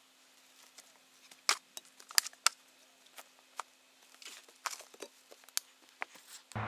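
Scattered crackles and sharp snaps of dry twigs and leaf litter being disturbed while ferns are dug up for transplanting, with the loudest few snaps close together around two seconds in.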